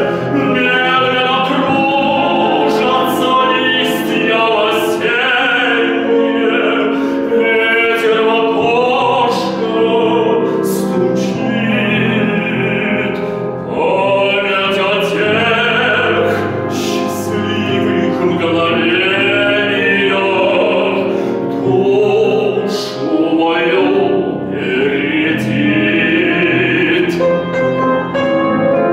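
Male singer in classical, operatic style singing a Russian romance with a wide vibrato and long held notes, accompanied by piano.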